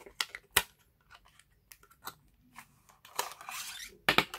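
Gold-plated PVC playing cards and their stiff foil box being handled as the deck is taken out: sharp plastic clicks and snaps, the loudest about half a second in, a short sliding rustle about three seconds in, then a cluster of crisp clicks as the stiff cards are pulled apart.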